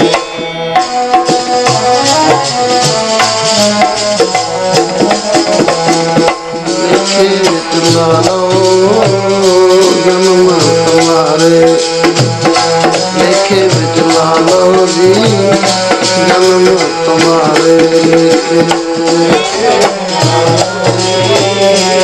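Sikh kirtan music without words: tabla playing under a melody of held notes that changes pitch step by step.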